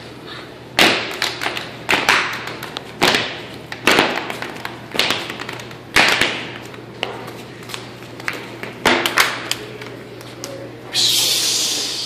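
Feet stomping on a tile floor in a rough rhythm about once a second, some stomps followed by a couple of lighter taps. A short hiss follows near the end.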